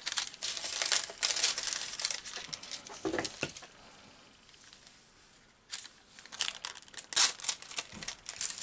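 Thin iridescent Angelina film crinkling and rustling as it is unrolled, handled and laid over fibres. Dense crinkling for the first few seconds, a quieter pause, then sharper crackles again from about six seconds in.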